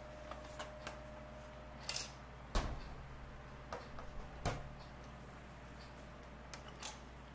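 Light plastic clicks and knocks from an X-Shot Insanity Mega Barrel toy dart blaster being handled, with two louder knocks about two seconds apart a few seconds in.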